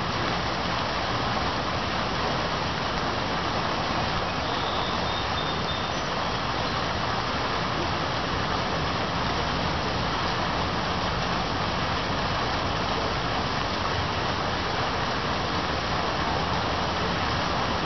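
Steady rain falling, a continuous even hiss, with a faint low hum underneath.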